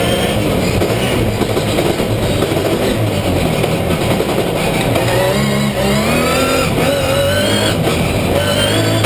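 Logan rallycross Supercar's engine at racing revs, heard from inside the cabin. Its pitch climbs several times in the second half and drops back between the climbs as it accelerates hard.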